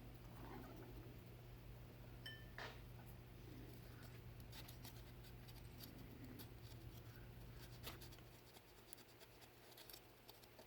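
Faint scratching of a cotton swab scrubbing corrosion off a toy's battery terminal with baking soda and water, over a faint steady hum. The scrubbing stops about eight seconds in, leaving near silence with a few small ticks.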